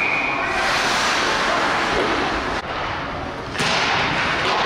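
A referee's whistle blows briefly at the start, stopping play, followed by the scraping and hiss of skates on ice and the echoing noise of an indoor hockey rink.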